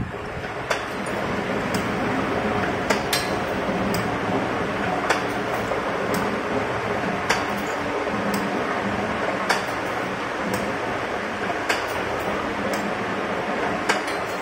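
Automatic wire-forming machine making scaffold split pins from 2.5 mm wire, running steadily with a sharp metal clack about once a second as its forming tooling cycles.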